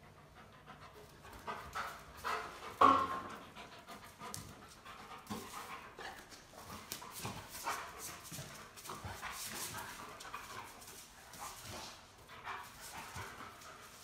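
Golden retriever panting in quick, light breaths. One short, sharp, louder sound stands out about three seconds in.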